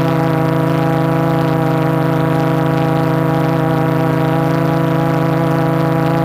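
Quadcopter's four MultiStar 2212 920kv brushless motors spinning 12-inch carbon fibre props, heard from the GoPro mounted on the frame: a steady hum with a stack of even tones and no change in pitch, as the drone hovers.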